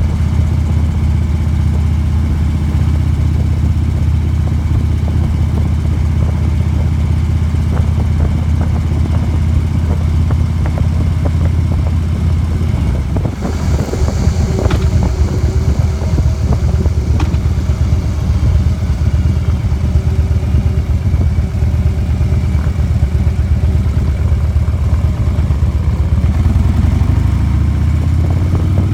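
Motorcycle engine running steadily under way, mixed with wind and road noise. About halfway through the steady engine note breaks off and turns rougher with a burst of hiss, and near the end the engine pitch rises as the bike speeds up.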